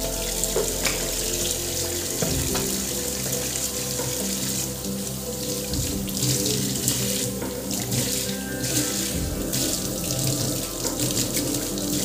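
Tap water running into a stainless steel sink, splashing as a cloth and then hands are rinsed under the stream.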